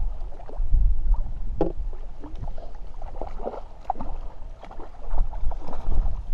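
Wind buffeting the microphone with a steady low rumble, over irregular splashes of a hooked trout thrashing at the water's surface.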